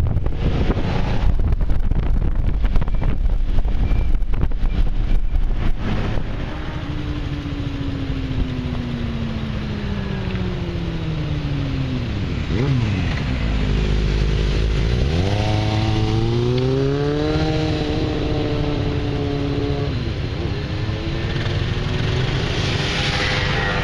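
Motor scooter engine on a group ride, with wind buffeting the microphone at first. Then the engine note falls steadily as the scooter slows, picks up again with a rising pitch about halfway through, and runs fairly steady to the end.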